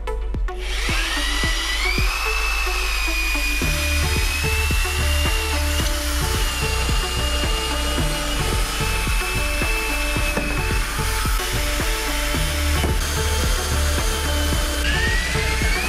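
Corded electric drill spinning up with a rising whine and running steadily as it bores into the OSB deck of a steel cart frame, spinning up again near the end. Background music with a steady beat plays underneath.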